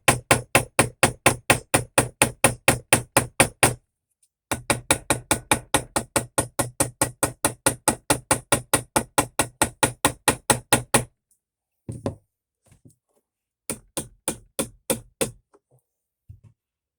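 Small hammer tapping quickly and evenly on a metal pin to peen it over, riveting a pocketknife's blades and handle together. The strikes come at about five a second in two long runs with a short pause between, then a brief clatter and a last short run of taps.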